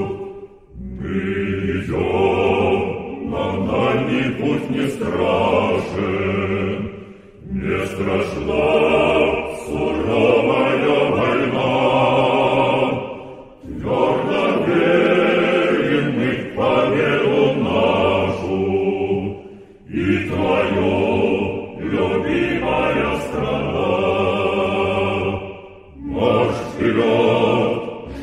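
Choir singing a Russian-language military march in phrases about six seconds long, each followed by a short breath pause.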